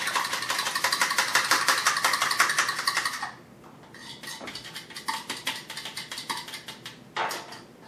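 A fork beating an egg in a small bowl: fast, even clicking of the fork against the bowl, about ten strokes a second, which stops about three seconds in. After that come a few light taps as the egg is poured and scraped out with the fork, and a sharper knock near the end.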